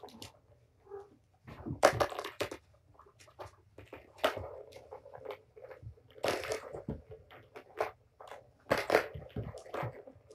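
Kitten batting at a plastic Tower of Tracks ball toy, the balls clattering around its plastic tracks in short bursts, about four times, with small ticks and scuffles between.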